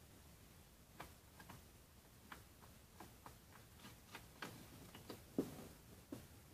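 Quiet, irregular little ticks and taps of a sheet of 80 g/m² A4 paper being folded and creased by fingers on a tabletop. One tap about five and a half seconds in is louder than the rest.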